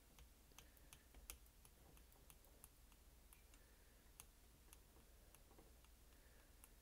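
Near silence, with faint scattered light ticks from a soldering iron tip being pressed and dabbed along a heat-seal ribbon cable on an LCD's glass.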